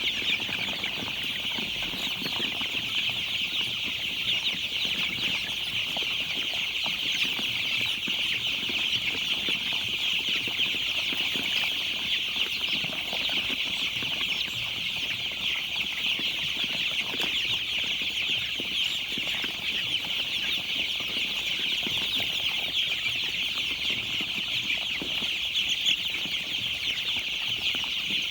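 A crowd of baby chicks peeping continuously: a dense, unbroken chorus of many high chirps overlapping.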